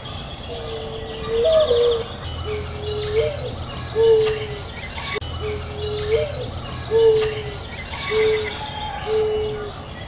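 Birds calling outdoors: a low, cooing note repeated in a steady pattern, each note ending with a short upward flick. Fainter high chirps and trills from other small birds run above it.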